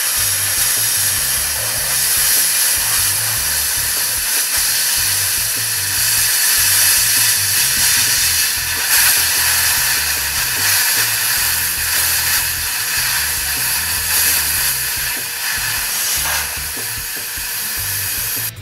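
Thermal Dynamics Cutmaster 42 plasma cutter cutting through the steel of a trailer: a loud, steady hiss of the arc and air jet that cuts off suddenly at the very end.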